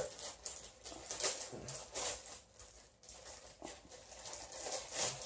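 Plastic packaging crinkling and rustling in irregular bursts as a small packaged item is worked open by hand.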